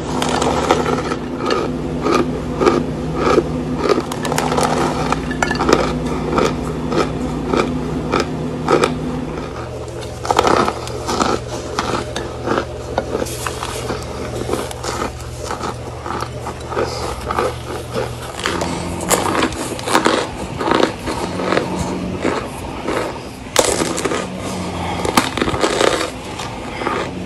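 Packed cornstarch crunching in dense, sharp crackles as it is squeezed in its box, broken into chunks and bitten. Under it runs a low held background tone that changes pitch twice.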